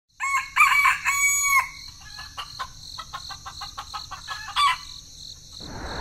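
Rooster crowing once, a three-part cock-a-doodle-doo, followed by a run of short clucking calls and one more call. A steady rushing noise starts near the end.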